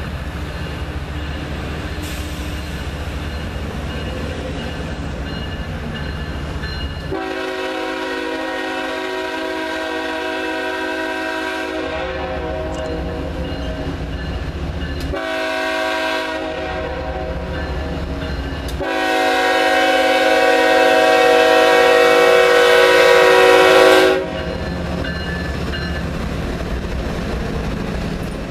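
Chime air horn of a CSX coal train's lead GE ES44AH diesel locomotive sounding for a grade crossing: a long blast, a short one, then a longer, louder blast. Under it runs the steady low rumble of the approaching locomotives.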